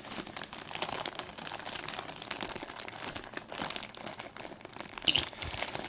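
Shipping package being handled and crinkled by hand, an irregular run of crackling with a louder crinkle about five seconds in.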